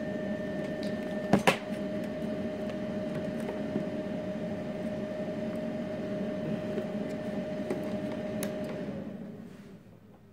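Steady electrical hum with a held tone, broken by a sharp click about a second and a half in, where a higher whine stops. The hum then fades out near the end.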